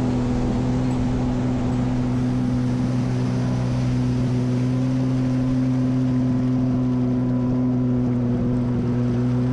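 Kawasaki Tandem Sport jet ski's two-stroke engine running at a steady pitch, with water rushing and spraying along the hull.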